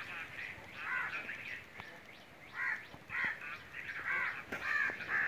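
Birds calling repeatedly, short harsh calls coming every half second to a second, with a few thin higher peeps among them.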